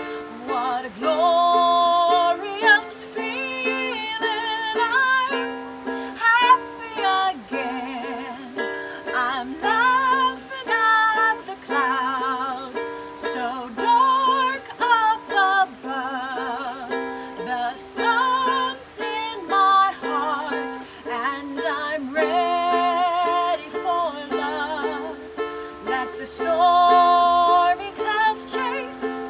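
A woman singing a melody with vibrato while strumming chords on a ukulele.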